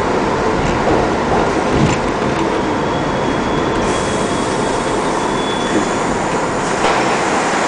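New York City Subway #7 train running along the track, heard from inside the car as a steady loud rumble and rattle of wheels on rail. A thin, high wheel squeal sounds faintly for a few seconds in the middle as the train takes the curve, and the hiss brightens about four seconds in as it leaves the tunnel.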